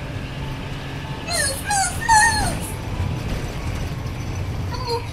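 Puppy whimpering: a few short, wavering high whines between about one and three seconds in, over a steady low rumble of the toy car rolling on asphalt.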